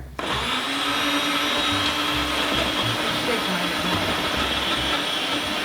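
Small personal blender motor switched on, starting abruptly and running steadily with a constant whine as it churns a chunky load of tomatillos, jalapeños, onion and cilantro for salsa. The thick mix is not moving well around the blade.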